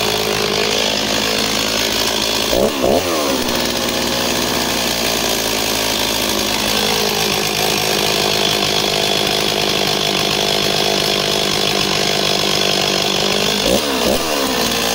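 Stihl MS260 two-stroke chainsaw engine ticking over at idle, with two quick blips of the throttle, about three seconds in and again near the end, and a brief sag in pitch in the middle. It is a project saw that runs and idles well, even upside down.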